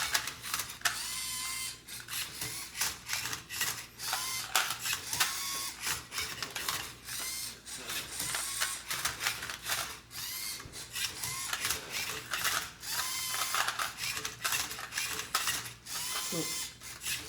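LEGO EV3 robot motors whirring in short whines that rise and fall, again and again, as the MindCuber turns and flips a Rubik's Cube, amid rapid plastic clicking of Rubik's Cube layers being turned.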